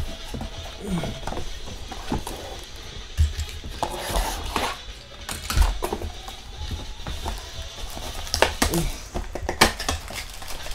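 Quiet background music with scattered sharp clicks and rustles from sports cards and their packaging being handled.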